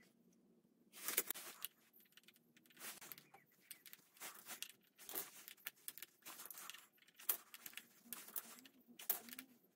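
Faint, irregular metallic clinks and rattles as small metal parts are handled at a pit bike's rear chain adjuster.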